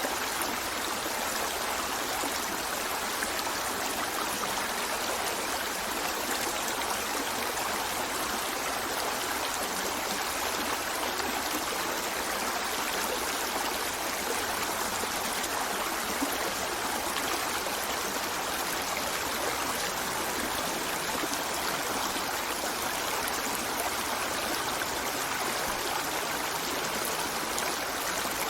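River water flowing steadily over stones, a continuous rushing and babbling.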